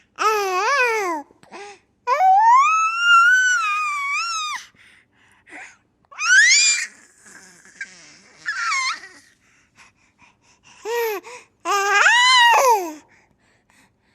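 A baby laughing and squealing in short high-pitched bursts, with one long squeal a couple of seconds in.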